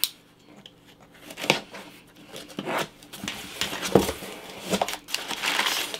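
Packaging being torn and crinkled, with scattered rustles and a few light knocks as a hardcover book is pulled out and handled; the loudest knock comes about four seconds in.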